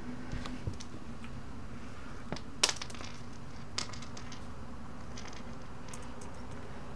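A smartphone and a small object being handled in the hands: a few sharp clicks and taps, the loudest about two and a half seconds in, over a steady low hum.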